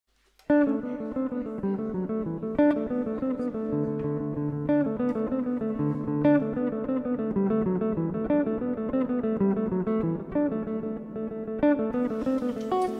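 Background music: a guitar playing a picked melody, starting about half a second in.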